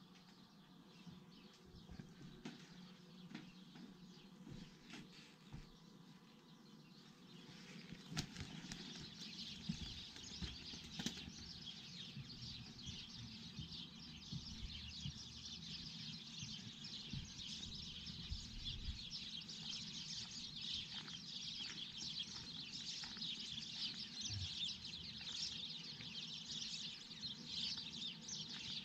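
Many small birds chirping and chattering at once in a dense, continuous chorus, faint at first and much fuller from about eight seconds in.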